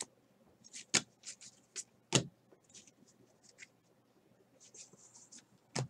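Trading cards being flipped through by hand: short papery swishes and sharp little clicks of card stock sliding and snapping against card. Several come in the first two seconds, fainter ones follow, and there is a stronger click near the end.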